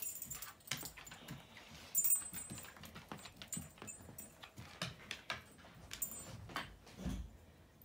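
A dog's nails clicking and tapping on a hardwood floor as it moves about sniffing among cardboard boxes, with a dull thump near the end.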